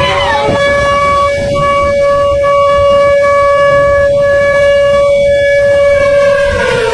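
Warning siren holding one steady wail, its pitch falling away near the end as it winds down, over a low rushing noise.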